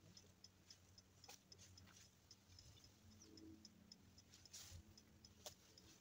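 Near silence: faint outdoor ambience with a steady high ticking, about five ticks a second, and a few faint clicks and rustles.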